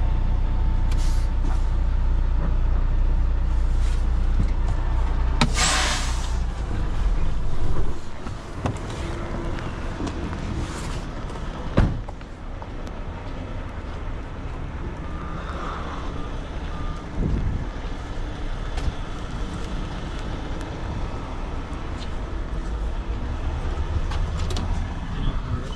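Semi truck's diesel engine idling, heard from inside the cab, with a loud hiss of air about six seconds in as the air brakes are set. A single sharp bang comes about twelve seconds in as the cab door shuts, and the idle then carries on more quietly from outside.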